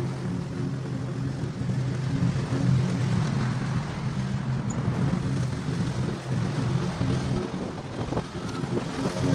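Small gasoline engine running steadily, with a constant hiss over it.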